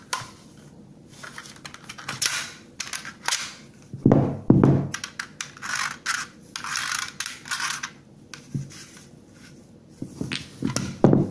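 Handling noise from a plastic two-bay 18650 battery charger turned over in the hands: irregular clicks, taps and rubbing of hard plastic, with louder knocks about four seconds in and again near the end.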